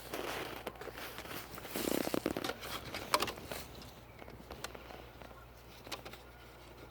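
Handling noise: irregular rustling with a few scattered sharp light clicks.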